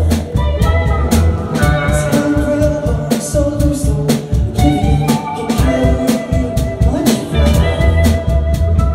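A live rock band playing: a drum kit keeps a steady beat under guitar, with a voice singing.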